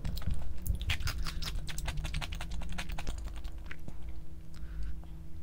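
Close-miked eating: a rapid run of small crisp clicks and crunches from chewing, densest in the first three seconds and thinning out after.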